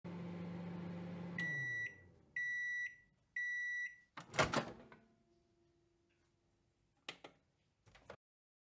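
Microwave oven finishing its run: the low hum winds down, then three long beeps on one high tone signal that the timer has reached zero. A loud clunk follows, then a couple of short clicks near the end.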